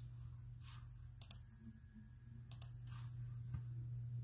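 A few faint clicks from a computer keyboard and mouse in use, several of them in quick pairs, over a steady low hum.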